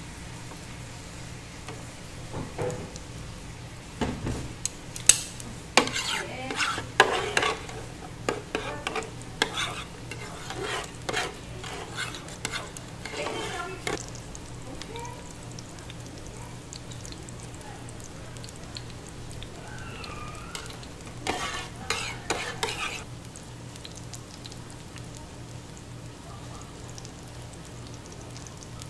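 Slotted plastic turners scraping and tapping on an electric griddle pan as a giant rolled omelette is turned, over the steady low sizzle of egg frying. The scrapes and knocks come in a busy run from a few seconds in to about halfway, then in another short burst about three-quarters of the way through.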